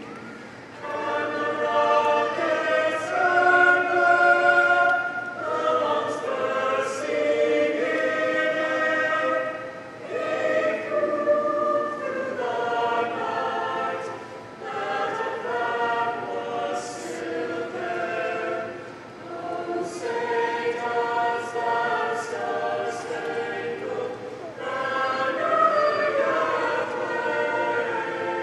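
Mixed-voice student choir singing in long held chords, phrase by phrase, with brief pauses for breath between phrases.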